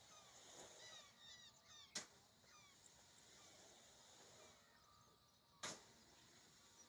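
Faint outdoor ambience with a bird chirping a quick run of short notes in the first two seconds. Two sharp knocks come about two seconds in and again near the end.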